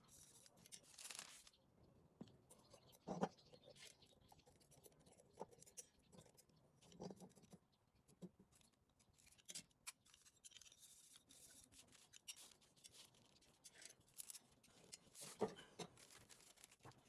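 Near silence with faint, scattered clicks and short scrapes of hand work on small parts, and a couple of louder knocks about three seconds in and near the end.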